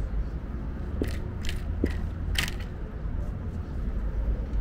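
Riding a rental city bicycle: steady low rumble of wind and road noise, with four short mechanical clicks or rattles between about one and two and a half seconds in.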